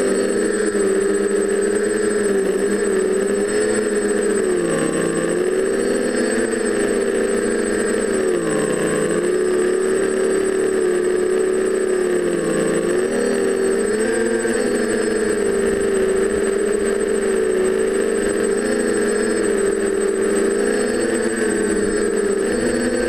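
TBS Discovery quadcopter's four brushless motors and propellers in flight: a steady pitched buzz that dips briefly in pitch several times as the throttle eases, then climbs back. A thin steady high whine sits above it.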